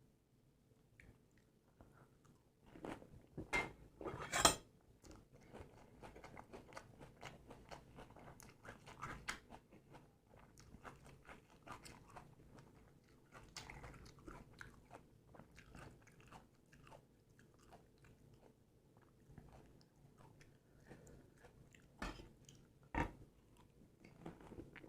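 Close-up crunching of panipuri: the crisp fried puri shells bitten with a couple of loud crunches a few seconds in, then steady crackly chewing, and two more loud crunching bites near the end.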